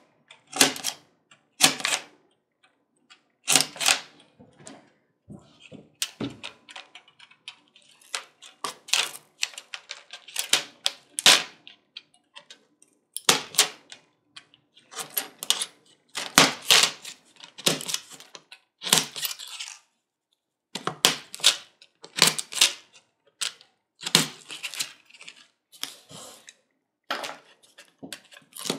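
Utility knife blade slicing through aluminum honeycomb core: a series of short, crisp crunching cuts as the thin aluminum cell walls give way, about one a second with a few brief pauses.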